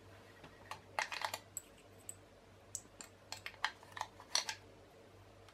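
.223 Remington cartridges being thumbed into a Tikka T3 three-shot polymer rifle magazine: light clicks as the rounds are pressed in, a cluster about a second in and more from about three to four and a half seconds.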